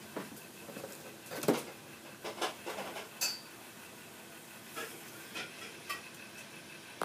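Handling noise from the RC airboat kit's parts and packaging: irregular light clicks and rustles, the loudest about a second and a half in, with one brief high squeak about three seconds in.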